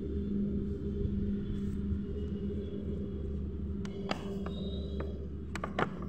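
Steady low rumble with a faint hum, and a few sharp clicks of the plastic bottle being handled about four seconds in and again near the end.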